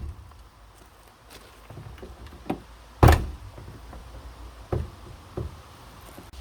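Driver's door of a 1954 DeSoto shut with one loud slam about three seconds in, the door closing on its newly fitted replacement latch. A few lighter knocks and clicks come before and after it.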